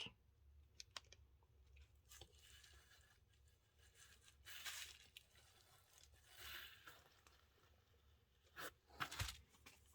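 Near silence with faint rustling and a few light clicks near the end: small drive-shaft parts and tools being handled at a workbench.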